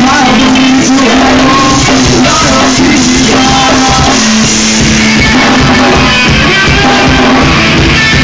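Rock band playing live and loud: electric guitars with a sung vocal over the band, recorded so close to full level that the sound is packed and overloaded.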